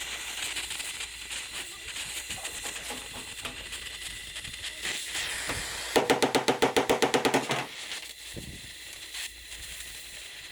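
A steady hiss, then about six seconds in a loud burst of rapid rattling blows, about eight a second, lasting under two seconds, like a power tool at work on the truck cabin's sheet metal.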